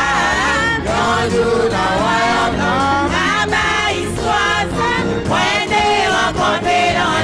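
Gospel singing by a group of voices with live band accompaniment: a steady low bass line under the sung melody.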